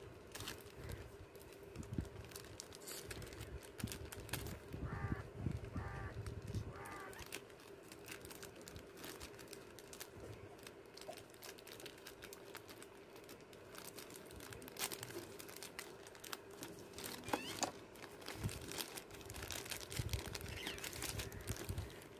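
Thin clear plastic packaging crinkling and rustling as a blade cuts open and the hands pull apart the sleeve holding hot-glue sticks, with many short irregular crackles.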